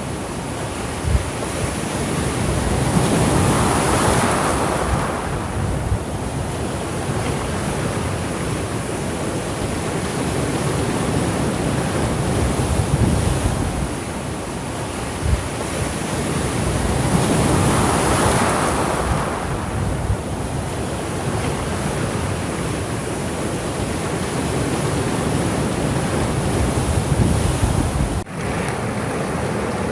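Small sea waves washing onto a shore, with two larger waves breaking and surging about fourteen seconds apart. Wind rumbles on the microphone underneath.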